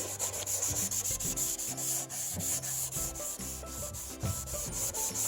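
Applicator pad with cleaning solution rubbed quickly back and forth over a faded, hazy headlight lens, a continuous run of short scratchy strokes.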